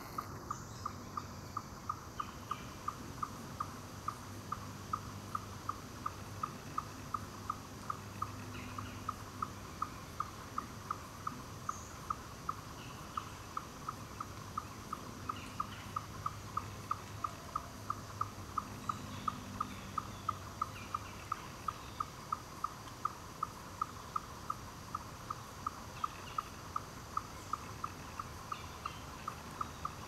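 An animal calling without a break: a steady, evenly spaced series of short low-pitched chirps, about two and a half a second.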